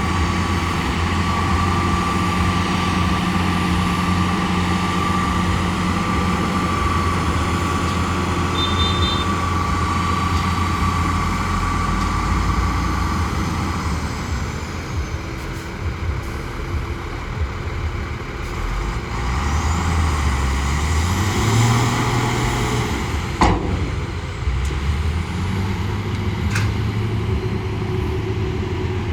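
Shantui bulldozer's diesel engine running under load, with a steady high whine through the first half; the engine pitch rises and falls about twenty seconds in, and a single sharp knock comes a few seconds later.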